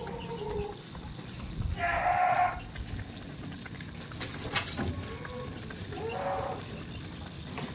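Goats bleating, two calls about four seconds apart.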